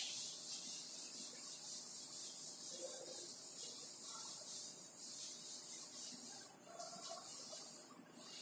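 Chalkboard duster scrubbing chalk off a blackboard in quick back-and-forth strokes, a dry scratchy hiss with brief pauses near the end.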